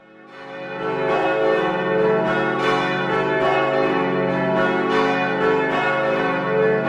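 Church bells ringing a peal, several bells struck one after another about twice a second, fading in over the first second.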